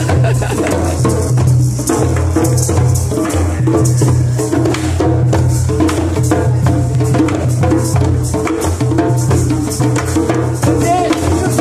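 Several djembe-style hand drums played together in a fast, steady rhythm, with a shaker rattling along.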